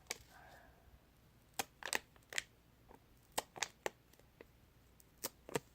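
Scissors snipping, a string of about eight sharp, irregular clicks, as holes are cut in a homemade craft squishy.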